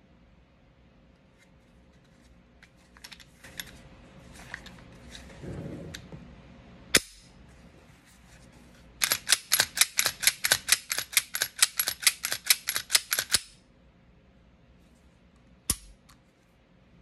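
Sharp mechanical clicks from the working parts of a Smith & Wesson M&P Shield Plus 9mm pistol being handled after cleaning: a single click, then a fast even run of about two dozen clicks lasting some four seconds, then one more click near the end.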